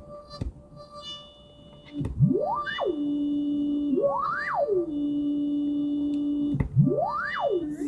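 Synthesized sound effect played back three times: each time a tone glides quickly up to a high pitch, drops back down and settles into a steady low hum.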